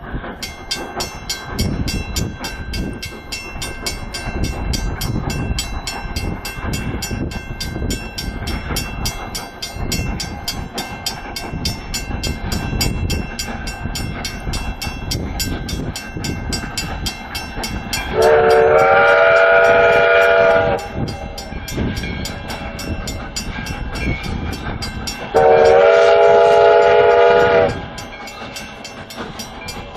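Train running with a steady rumble, sounding two long blasts on its multi-note whistle, each about two and a half seconds long and some five seconds apart.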